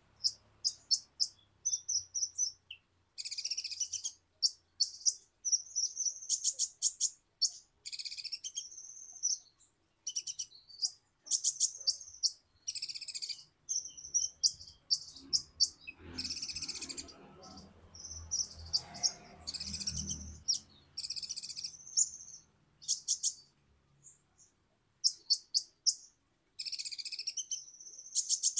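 Sunbird ('kolibri ninja') singing: rapid, high-pitched chirps and buzzy trills in short bursts separated by brief pauses.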